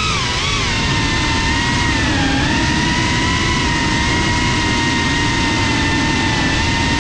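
FPV quadcopter's brushless motors and propellers whining at a mostly steady pitch during low cruising flight, with a brief dip in pitch about two seconds in, over a steady rushing of air.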